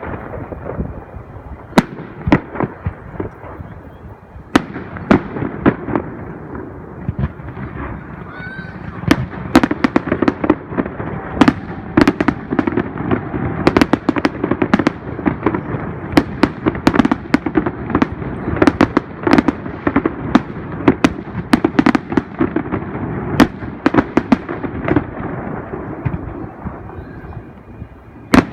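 Fireworks display with aerial shells bursting in quick succession: dozens of sharp bangs over a continuous rumble of booms, coming thickest through the middle of the stretch.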